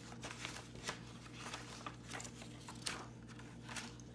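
Pages of a large picture book being turned and pressed flat by hand: a series of faint, irregular paper rustles and flicks.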